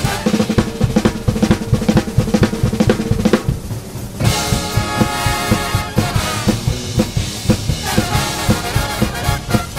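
Drum kit played hard in a busy run of snare and tom strokes, a drum break, with the big band's brass section coming back in about four seconds in over the driving drums.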